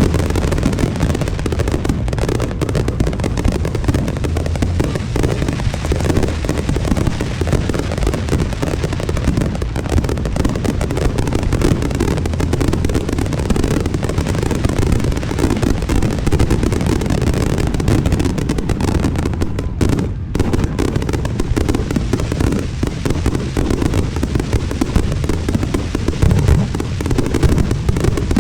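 Professional firework display firing continuously: a dense, unbroken run of shell bursts and deep booms at a steady, loud level.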